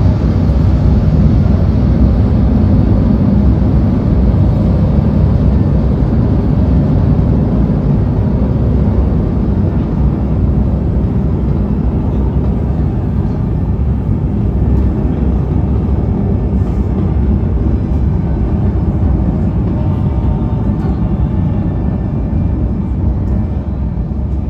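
A loud, steady low rumble, like engine noise, that eases off near the end.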